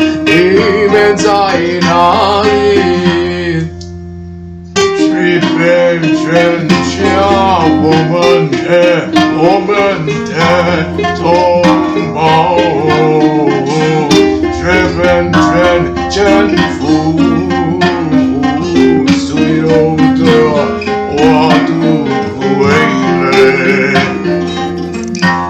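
Dark folk music led by plucked acoustic guitar. About four seconds in it drops for a second to a few soft held notes, then the full music comes back.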